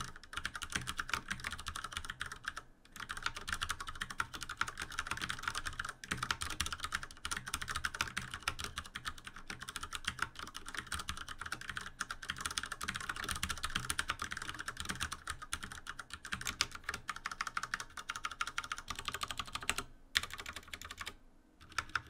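Sustained fast typing on a Ducky Shine 7 mechanical keyboard with tactile Cherry MX Brown switches: a dense, continuous run of keystrokes, smooth, with no rattle or ping from the stabilizers. The typing breaks briefly about three seconds in and pauses near the end before a few single key presses.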